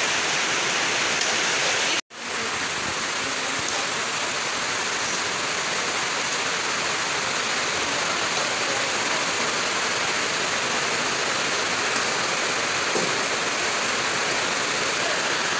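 Heavy rain pouring down as a steady, even rush of noise, cutting out for an instant about two seconds in.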